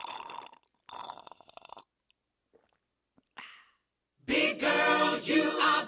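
A few seconds of near quiet broken by brief faint rustling noises, then a pop song with a singing voice cuts in suddenly about four seconds in and plays loudly.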